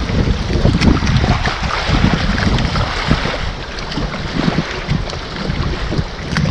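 Strong gusty wind buffeting the microphone, a continuous rushing noise with a heavy low rumble that swells and eases with the gusts.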